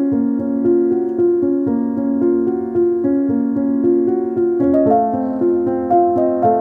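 Background piano music: a steady flow of notes, moving to a somewhat higher set of notes about three-quarters of the way through.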